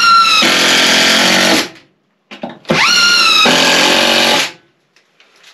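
Cordless drill driving screws into wood, running in two bursts of about two seconds each. Its whine rises quickly at the start of each burst as the motor spins up, then holds steady.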